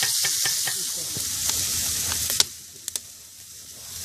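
Meat sizzling as it fries in a large round steel pan over a wood fire, a steady hissing sizzle. About two and a half seconds in the sizzle drops sharply after a click and goes on more faintly, with a few small clicks.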